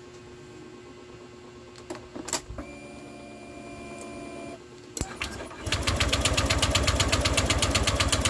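Honda Click 150 scooter engine being cranked by its electric starter, a fast, even chugging for about three seconds that does not catch. A couple of clicks and a steady hum lasting about two seconds come before it.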